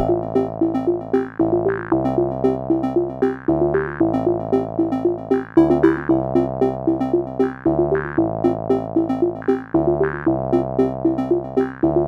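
Electronic background music: a synthesizer playing a quick repeating figure over sustained chords that change every second or two.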